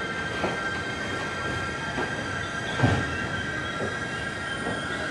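Container wagons of a JR Freight train rolling slowly into the station, with a steady high-pitched squeal from the wheels and a few clacks over rail joints, the loudest nearly three seconds in.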